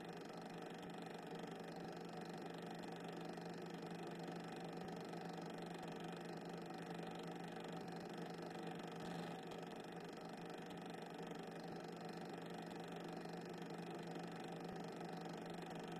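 Steady low hum with a faint hiss and no distinct events: the background noise of a silent 8mm cine-film transfer, with no sound from the trains themselves.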